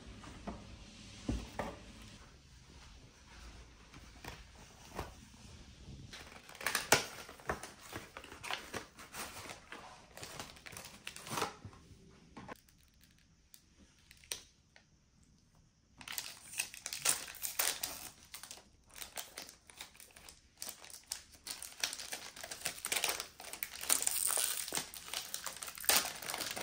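Foil wrapper of a Polaroid Color 600 film pack crinkling and tearing as it is opened by hand: a run of quick crackles that dies away for a few seconds past the middle, then comes thick again.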